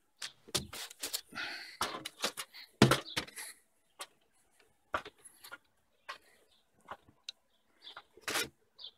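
Handling noise: irregular rustling, clicks and knocks, with one loud knock about three seconds in and a shorter cluster of knocks near the end.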